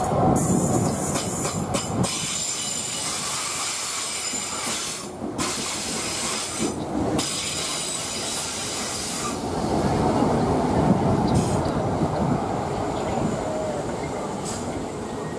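Class 319 electric multiple unit running past on curved track: a steady rumble of wheels on rail with hiss, swelling about two-thirds of the way through.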